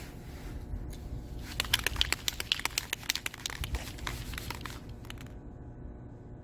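Crinkling and crackling of something being handled: a quick, irregular run of sharp clicks starting about a second and a half in and lasting about three seconds.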